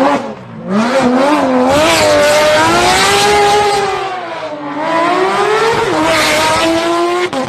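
Porsche 911 GT3 RS's naturally aspirated flat-six revving hard through a hairpin. Its pitch jumps up and down several times about a second in, climbs and falls in a long sweep, then climbs again as the car passes close near the end.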